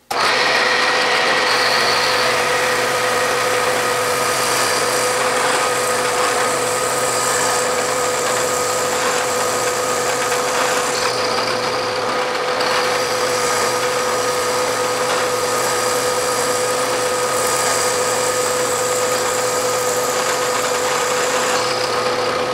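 Milling machine running an end mill that spot-faces pockets into a cast aluminium base: a steady machine hum with a constant tone under the noise of the cutter in the metal.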